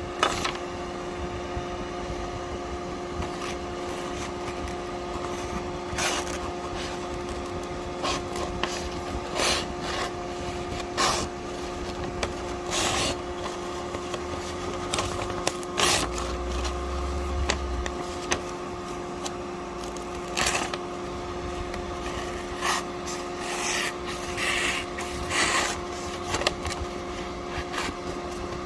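Irregular scraping and rubbing strokes on wood or metal, one every second or two, over a steady hum.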